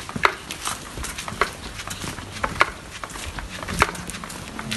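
Footsteps on concrete paving: four sharp slaps about a second apart, with lighter scuffs between them.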